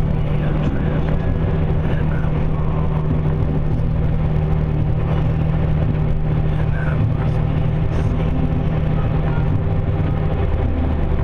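Steady low hum of a running vehicle, holding one even pitch, with a few faint short chirps above it.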